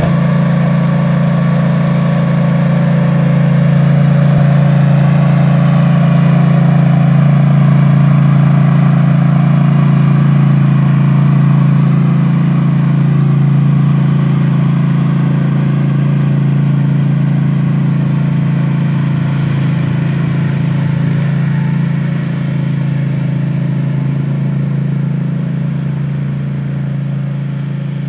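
Engine of an AS-Motor AS 940 Sherpa 4WD RC remote-controlled ride-on mower running steadily at an even pitch, just after starting, growing a little fainter in the second half as the machine drives away.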